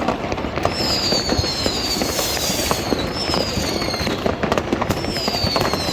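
Many fireworks and firecrackers going off at once in a dense, continuous crackle of bangs. From about a second in, several high whistling fireworks slide down in pitch, one after another.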